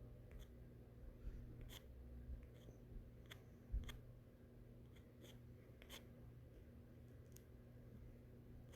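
Near silence: a steady low hum with faint, scattered small clicks, about a dozen, irregularly spaced.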